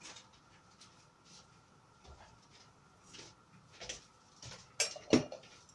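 Saucepan of water with dumplings boiling on a gas hob, giving faint scattered ticks and pops, then two sharp clicks close together near the end.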